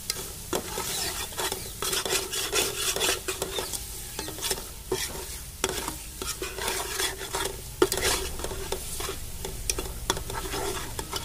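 Steel ladle stirring and scraping thick masala paste as it fries in oil in a metal pot: a steady sizzle with frequent clicks of the ladle against the pot. The masala is being cooked until the oil separates.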